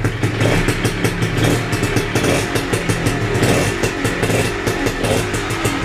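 Minsk motorcycle's single-cylinder two-stroke engine, fitted with a Yamaha piston, a reed valve and a home-made expansion chamber, running on choke and revved with the throttle. The owner describes the engine as badly worn.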